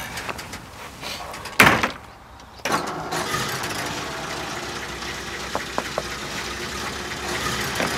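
A car door slams shut about a second and a half in. About a second later the old car's engine starts and settles into a steady idle.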